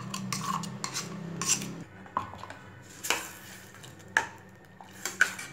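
Steel ladle scraping and clinking against a stainless-steel pressure cooker as spice paste is added and stirred into the liquid, with several sharp clinks about a second apart. A low steady hum runs under the first two seconds and then stops.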